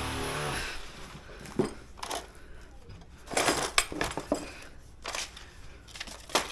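A power tool running steadily stops about half a second in, then scattered sharp knocks and metallic clinks follow as tools and broken pieces are handled during pipe work.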